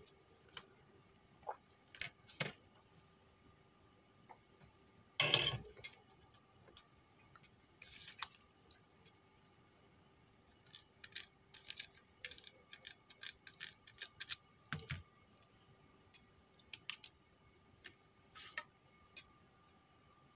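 Small clicks and taps of a car stereo's plastic front panel and circuit board being handled and set down on a workbench. There is a louder clatter about five seconds in and a quick run of clicks in the middle.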